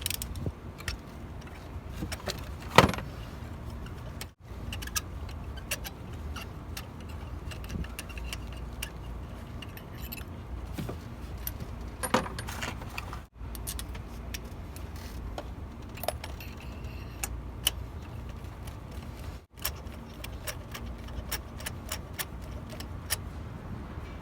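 Scattered light metallic clicks and clinks of a ratchet, socket and extension being worked on the engine's spark plugs, with one louder clack about three seconds in, over a steady low hum. The sound cuts out briefly three times.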